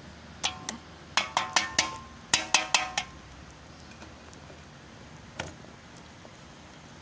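A metal grater is knocked against the rim of a stainless steel bowl in quick runs of taps, each ringing briefly, shaking off grated garlic. There is a pair of knocks, then two runs of about five, and a last single knock about five seconds in.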